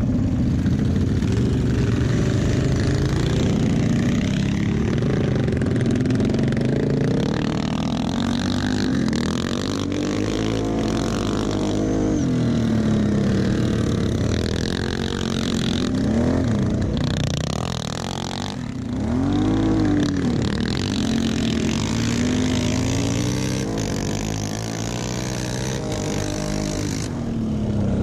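Green quad's engine heard from the rider's seat, revving up and easing off again and again as it accelerates and slows through the corners of a dirt track.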